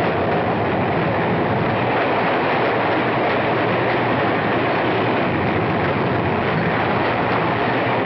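A moving train running steadily, a continuous even noise of wheels on track with no clear breaks.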